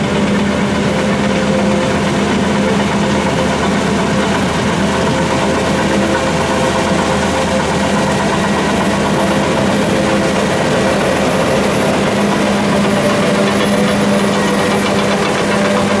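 CLAAS Lexion 770 combine harvester, with its Mercedes-Benz 15.6-litre six-cylinder diesel, running steadily under load while cutting and threshing rice. It is a loud, constant machine drone with a low held hum.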